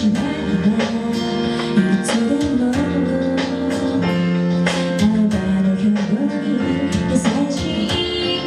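Live band music with guitar, played at a steady beat.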